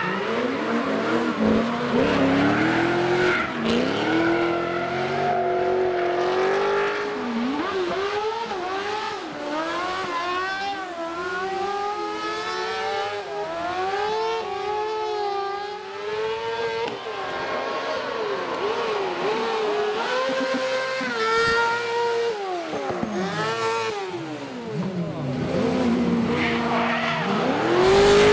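Competition car drifting: the engine revs up and down again and again as the throttle is worked, with tyres squealing. The loudest moment is a rising rev near the end.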